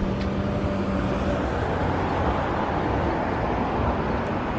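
Steady street traffic noise, cars passing, with a faint hum that stops about a second and a half in.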